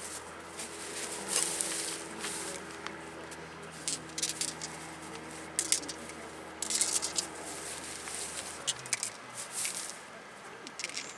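Small metal brake parts and tools handled on a cloth: scattered light clinks, scrapes and rustles at an uneven pace. Under them a faint steady low hum runs and stops about three-quarters of the way through.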